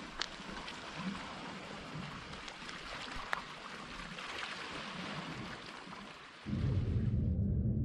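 Small waves lapping and splashing against shoreline rocks: a steady watery hiss with little splashes. About six and a half seconds in it cuts abruptly to a louder low rumble.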